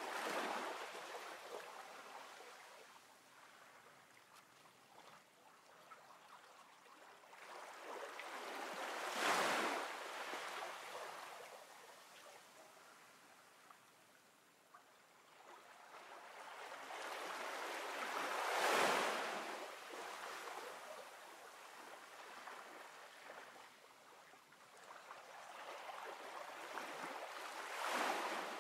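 Ocean surf: waves washing in and drawing back, a slow swell about every nine seconds, four times.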